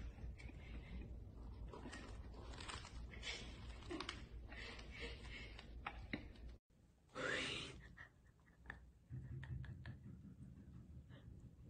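Cats crunching dry kibble from a bowl: faint, irregular crackly crunches. After about six and a half seconds the sound cuts out and is followed by a short, louder sound.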